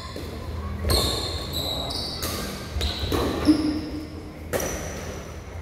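Badminton rally: about four sharp racket strikes on the shuttlecock, mixed with short high-pitched squeaks of shoes on the tiled court floor.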